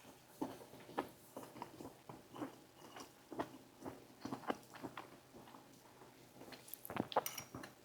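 Close-miked chewing of food, heard as soft, irregular mouth clicks a couple of times a second; the food is dry.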